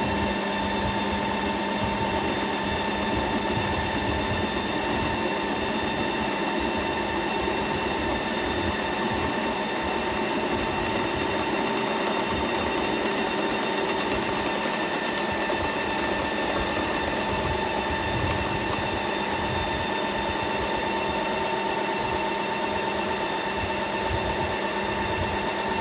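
Ninja Creami ice cream maker running its mix-in cycle: a steady motor whine over a rough churning as the blade works peach-ring candy pieces into the frozen ice cream.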